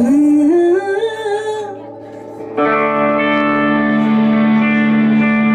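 Slide guitar playing a slow, wavering glide that climbs in steps, then a chord held and ringing on from about two and a half seconds in.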